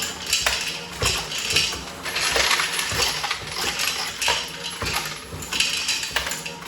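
Dillon Precision RL1100 progressive reloading press, driven by a Mark7 AutoDrive, cycling 9mm rounds: steady metallic clinking and clatter of brass cases, with a sharper knock every second or so.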